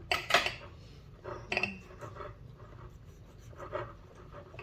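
Cutlery clinking and scraping against dinner plates during a meal, with a loud clatter right at the start and another about a second and a half in.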